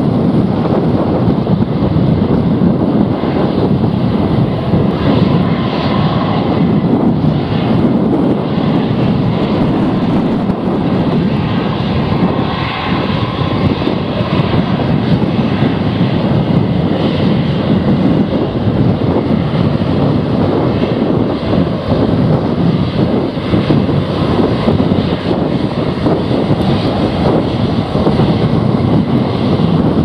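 Jet engines of an easyJet Airbus A319 airliner running steadily as it moves along the runway, a continuous rumble with a faint whine above it.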